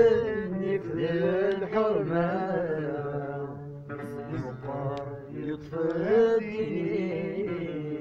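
Music: a voice singing a slow, chant-like melody over a steady low held tone.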